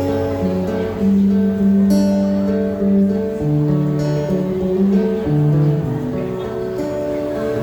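Acoustic guitar strumming slow, sustained chords: the instrumental introduction of a pop ballad, with the chords changing about every second or two.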